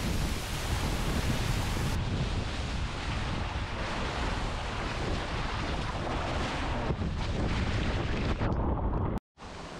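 Strong, gusty wind of about 20 to 30 knots buffeting the microphone, a heavy low rumble over a rush of wind and water. It cuts off abruptly just before the end.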